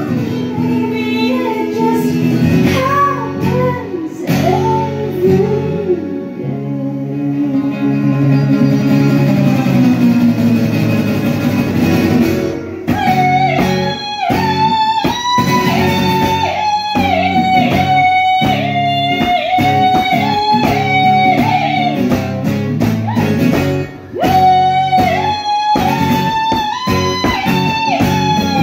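Live pop music: a steel-string acoustic guitar with a female voice. A chord is held for several seconds, then from about halfway through the guitar drives a fast, even rhythm under a high, wavering melody line.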